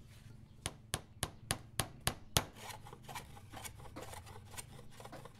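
A small hammer tapping on a thin wooden door panel while the fabric sleeve is fixed between the door pieces. There are about seven sharp, evenly spaced taps, roughly three or four a second, and then quicker, lighter taps.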